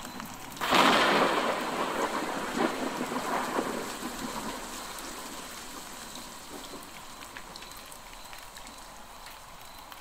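A clap of thunder about half a second in, rumbling and fading away over about four seconds, over steady rain.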